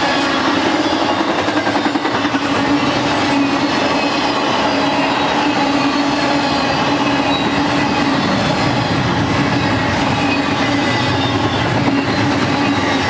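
Double-stack intermodal well cars rolling past close by: a loud, steady rumble and clatter of steel wheels on rail, with a steady tone held in it.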